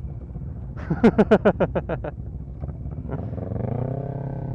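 Motorcycle engines idling with a steady low rumble. About a second in comes a rapid run of about eight short, loud pitched sounds. Near the end a motorcycle engine revs up and holds.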